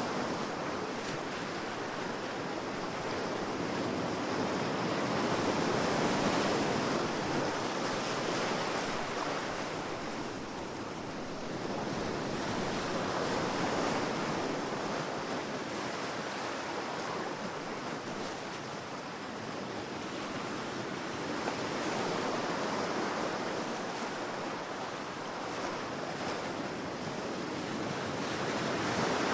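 Ocean surf washing onto a beach, a continuous rush of waves that swells and fades every several seconds.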